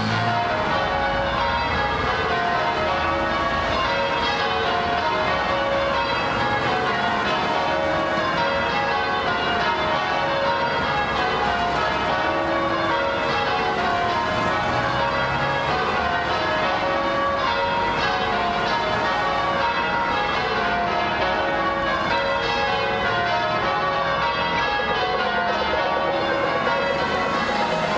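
A peal of church bells ringing changes: many bells struck one after another, their notes falling in repeated descending rows.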